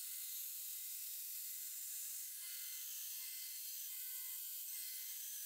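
Belt grinder grinding the bevel of a steel knife blade, heard faint and thin: a steady hiss with a light high whine and no low rumble.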